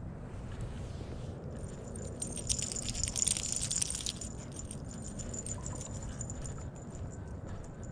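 Footsteps of a person walking a small dog on a paved path, with light metallic jingling from the dog's leash and harness hardware, loudest about two to four seconds in.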